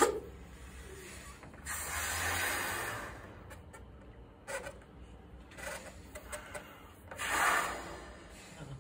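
A man inflating a balloon by mouth: two long blows of rushing air into it, the second near the end, with a short sharp sound right at the start and small breaths and sounds between.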